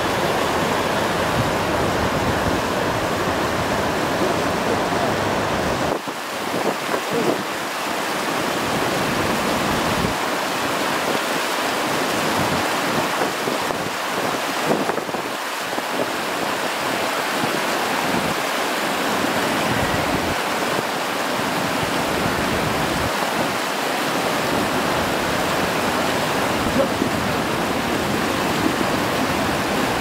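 River water rushing steadily over a low weir, with wind buffeting the microphone at times, mostly in the first few seconds.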